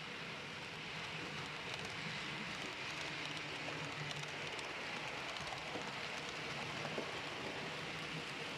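A model railway train running along the track: a steady rolling hiss from the wheels with a faint low motor hum, and a few small clicks.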